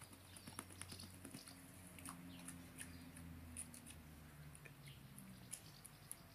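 Quiet, irregular patter and small clicks of a wet Leonberger puppy's paws and claws on wet stone paving as it walks about.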